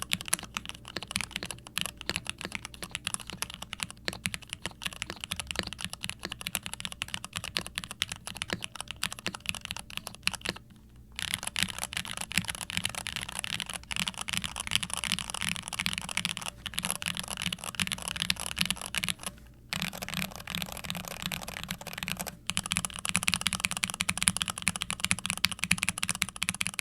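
Typing on a TKC Portico68 V2 mechanical keyboard with stock Cherry MX Hyperglide Red linear switches, in an injection-moulded plastic case with an FR4 plate, gasket mount and foam. It is a fast, continuous clatter of keystrokes that stops briefly twice and gets louder near the end.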